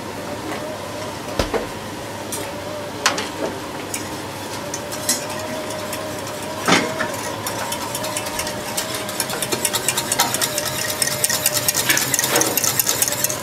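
Wire whisk stirring in a small stainless-steel saucepan, warming rye porridge with oyster juice: a few sharp knocks of utensils on the pans early on, then rapid metal-on-metal ticking that builds from about two-thirds of the way through. A steady kitchen hum runs underneath.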